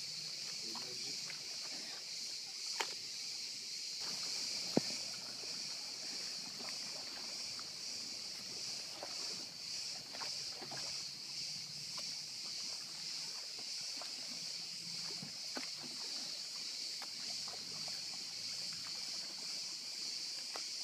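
Cicadas buzzing in a steady high-pitched chorus. A few sharp knocks and light splashes come from a small inflatable dinghy being rowed, its outboard motor not running.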